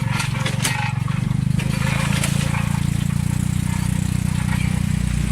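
Tuk-tuk engine running steadily under way, with a few sharp knocks and rattles in the first second from the bumpy offroad ride.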